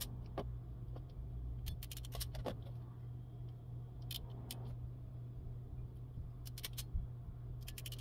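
Hand crimping tool clicking as terminals are crimped onto speaker wire: faint, scattered small clicks in a few clusters over a steady low hum.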